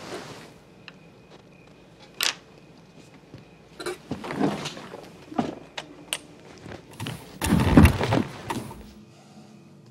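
Irregular knocks and thuds of unexplained cause, some sharp and clicky, others duller, with the loudest cluster near the end.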